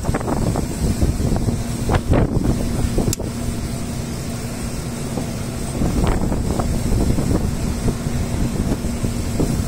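Wind buffeting the microphone on an open ship's deck over a steady low hum, with a single sharp click about three seconds in.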